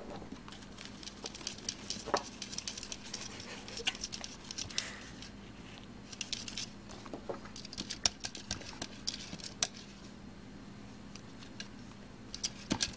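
A cat licking at the mouth of a plastic water bottle: quick wet tongue clicks in runs, with short pauses between them.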